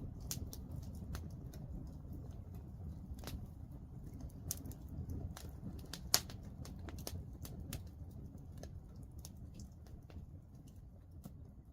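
Wood fire crackling in a fireplace: irregular pops and snaps over a low, steady rush of flame, with one sharper pop about six seconds in. It grows slightly quieter toward the end.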